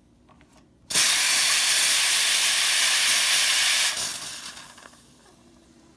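Steam hissing out of a Profitec Pro 500 espresso machine's boiler. It is loud and steady, starting suddenly about a second in, holding for about three seconds, then dying away over the next second.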